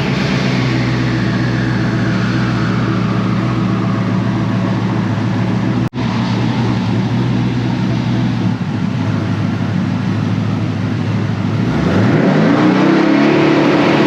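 Twin-turbocharged 6.0 L LS V8 running steadily, then revving up near the end, its pitch climbing and holding higher.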